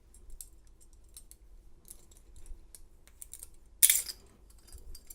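Steel handcuffs being handled and closed on a wrist: faint scattered metal clicks and clinks, with one much louder clattering click about four seconds in.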